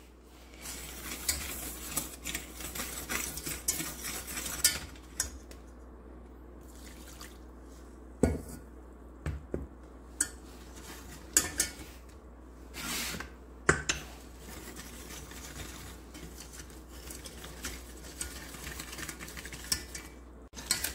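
Wire coil whisk stirring and scraping in a stainless steel saucepan, beating cornstarch, sugar and a little fruit juice into a lump-free paste, with sharp clinks of the whisk against the pan now and then.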